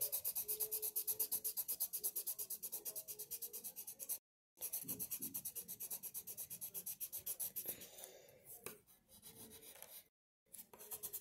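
Red colored pencil shading on paper in quick back-and-forth strokes, about ten a second. The sound cuts out completely twice for a moment, and the strokes grow fainter near the end.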